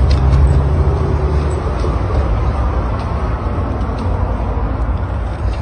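Small plastic wheels of a toy stroller rolling over stone paving slabs: a steady, loud rumbling rattle with a few light knocks.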